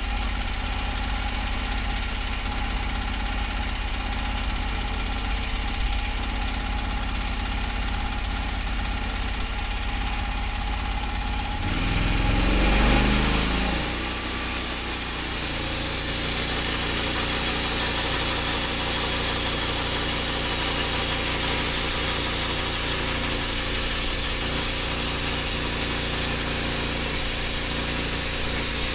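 Portable band sawmill's engine idling steadily, then throttled up about twelve seconds in. From then on it runs faster and louder, with a strong high hiss as the band blade cuts through the log.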